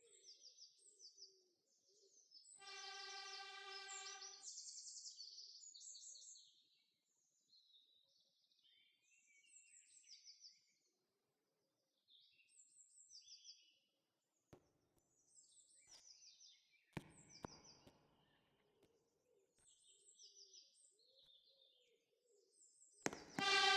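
Birds chirping, with the horn of a TG16M diesel locomotive sounding a steady note for about two seconds a few seconds in, then again much louder near the end.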